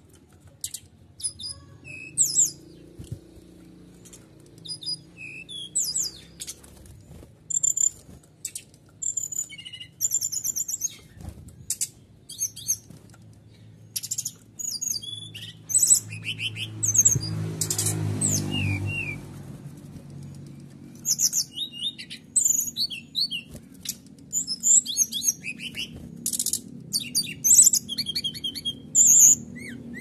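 Caged brown-chested jungle flycatcher (SRDC) singing hard, in quick bursts of high chirps and rapid trills with short gaps between. A brief rustle of wingbeats comes about halfway through, over a steady low hum.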